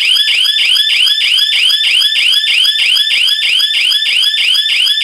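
GSM alarm system's siren going off: a loud, high-pitched whoop that rises quickly and repeats about four times a second. It comes on abruptly at the start.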